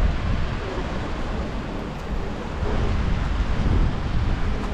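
Wind buffeting the microphone in an uneven low rumble, over the steady rush of water and the running noise of a small canal sightseeing boat.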